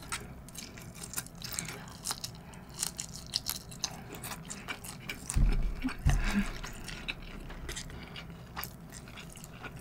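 Close-miked mouth sounds of chewing large shrimp nigiri: wet clicks and smacks scattered throughout, with two low thumps about five and a half and six seconds in.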